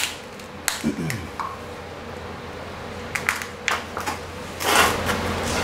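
Scattered light clicks and knocks of small containers and bottles being handled and set down during brake bleeding, with a short falling squeak about a second in and a brief rustle near the end, over a steady low hum.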